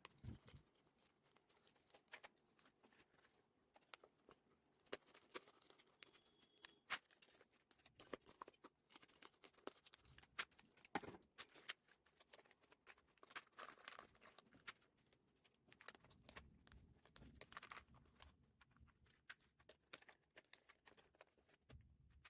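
Irregular small plastic clicks and taps with light rustling: keycaps and keyboard parts being handled, with packaging crinkling.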